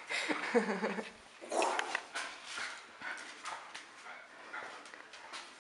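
A dog giving a short pitched whine, about a second long at the start, then a brief rustle and softer scattered noise.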